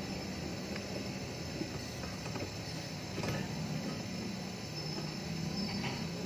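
A few light metal clicks and taps as a slide-hammer impact puller is fitted over the wheel hub studs and its nut is run on, heard over a steady low hum. There are no hammer blows yet.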